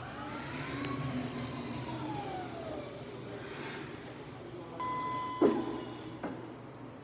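Electric drive motor of a Unicarriers OLP200 low-lift pallet truck whining, rising in pitch as it speeds up and then falling as it slows. About five seconds in comes a short steady beep, then a sharp knock, the loudest sound, and a smaller click about a second later.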